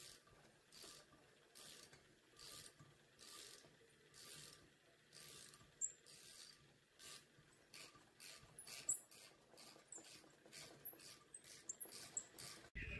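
Faint clicking of a hand ratchet wrench swung back and forth on a fastener in an aluminium cylinder head, in repeated short strokes, about one every 0.8 s at first and quickening to about two a second in the second half.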